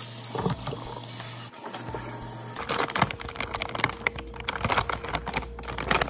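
Tap water running into a stainless-steel sink for the first second and a half. From about two and a half seconds in, a soft plastic packet of disinfecting wipes crinkles and clicks as wipes are pulled out of it.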